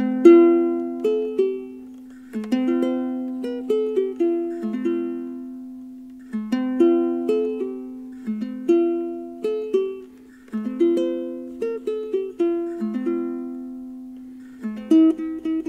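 Solo ukulele plucked with the right thumb alone, playing a simple melody over chords, each note ringing and dying away.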